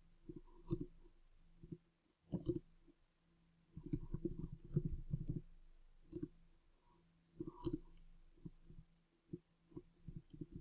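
Computer keyboard being typed on: irregular soft key clicks and thumps in short bursts, with a faint steady hum underneath.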